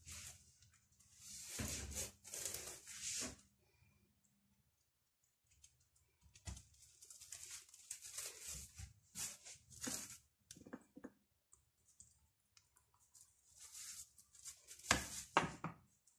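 Plastic cling film crinkling and rustling as dough is folded over on it by hand, in three spells of handling with short pauses between.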